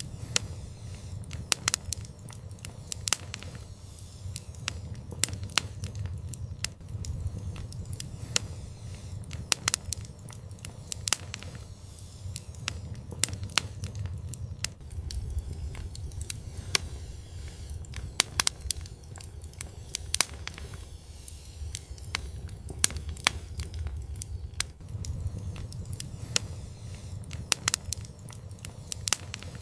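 Wood fire crackling and popping: irregular sharp snaps several times a second over a steady low rumble of the flames.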